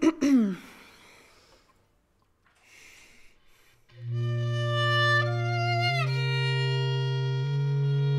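A violin plays a few short strokes that slide down in pitch. After a quiet pause with faint breathy noise, a bass clarinet enters about four seconds in, holding long low notes that step upward in pitch, with the violin playing sliding tones above.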